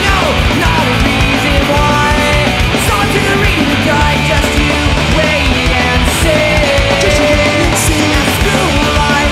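Punk rock band playing live: loud distorted electric guitars, bass and drums.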